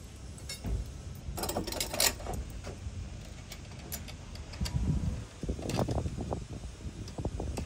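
Light metallic clicks and clinks as a washer and nut are fitted by hand onto a bolt through a steel side-step bracket and hand tools are picked up and set on it, with a brief rustle about a second and a half in.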